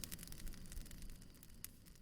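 Wood fire crackling, with scattered sharp pops over a low, uneven rumble of the flames.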